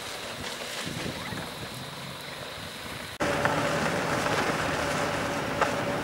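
Wind buffeting the microphone over the steady hum of a safari vehicle's engine running. A hard edit about three seconds in brings in a louder, steadier engine hum.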